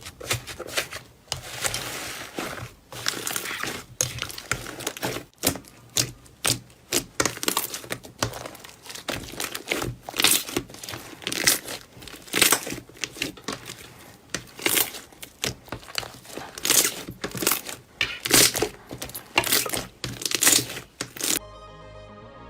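Slime being squeezed, poked and stretched by hand, giving an irregular run of sharp crackles, pops and squishes with a few longer crinkly stretches. Music comes in near the end.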